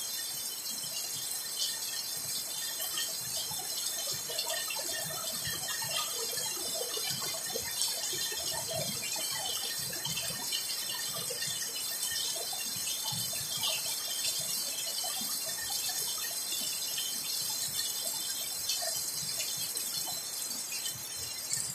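Heavy rain falling steadily: a dense hiss with many separate drops splashing and tapping close by.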